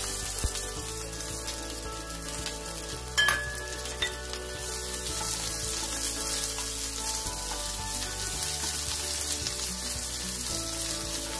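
Sliced yellow onion sizzling in hot oil in a frying pan, stirred with a wooden spoon. Two sharp knocks stand out about three and four seconds in.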